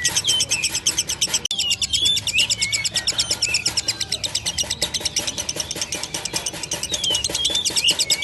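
Lovebird's rapid, unbroken chattering trill of about ten high notes a second, the long 'ngekek' song that hobbyists call 'konslet', with sweeping chirps mixed in.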